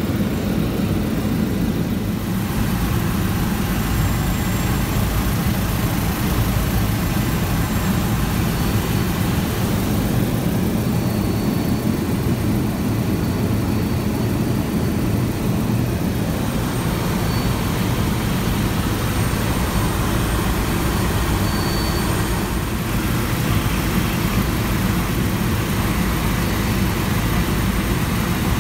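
Helicopter in flight: steady, loud rotor and turbine engine noise with a low, even drone.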